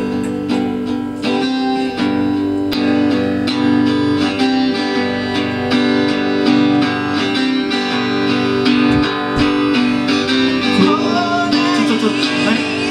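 A live band starting a song with strummed guitar chords ringing out; a voice comes in singing near the end.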